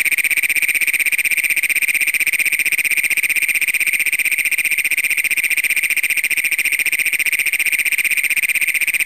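A Great Plains toad giving its advertisement call: a loud, rapid, unbroken trill that runs on without a pause.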